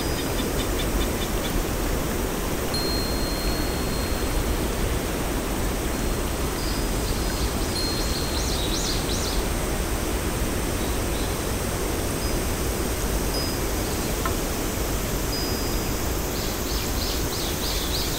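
Ambient nature soundscape: a steady, even rushing hiss with short high bird chirps about halfway through and again in a quick series near the end.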